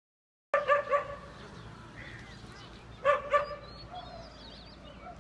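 A dog barking: three quick barks about half a second in, then two more about three seconds in.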